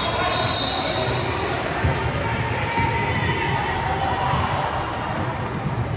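Basketball game play in a gym: a basketball bouncing on the court, with a brief high squeak near the start.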